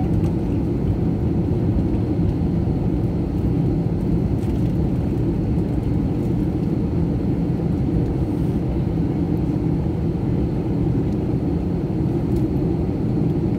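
Steady low rumble inside the cabin of a jet airliner taxiing on the ground, with the engines running at idle.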